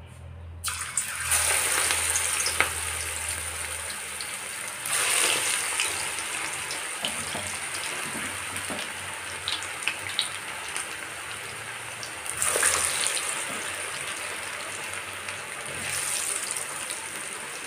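Batter-coated potato and onion pakoras deep-frying in hot mustard oil in an iron kadhai. The sizzle starts suddenly under a second in as the first pieces go into the oil, and flares up again a few times as more pieces are dropped in.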